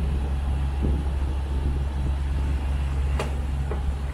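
A sailboat's inboard engine running at a steady speed, a low, even drone, with a single light click about three seconds in.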